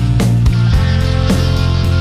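Rock music with electric guitar, bass and drums: sustained low notes under regular drum hits.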